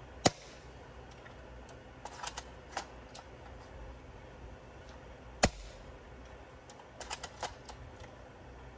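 Standard Modify MOD24 spring-powered bolt-action airsoft sniper rifle, without an air brake kit, firing twice about five seconds apart with sharp cracks. Between the shots come clusters of softer clicks as the bolt is worked to re-cock.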